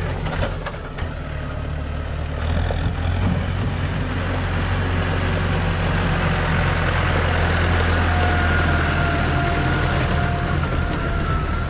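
Tractor engine running steadily as it pulls an Abbey muck spreader past. The sound grows louder over the first few seconds and stays loud, with a faint steady whine in the second half.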